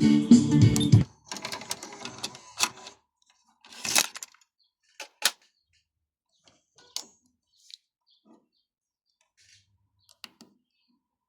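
Music from a Sony XR-C6200R car radio-cassette player cuts off about a second in. A series of sharp mechanical clicks and clunks follows from the unit's buttons and mechanism being operated, the loudest two about four and five seconds in.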